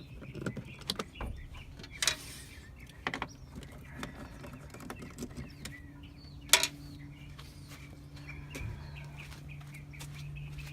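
Scattered clicks and knocks of hand tools on the plastic air filter cover as its screws are undone, with one sharp click about six and a half seconds in, over a steady low hum.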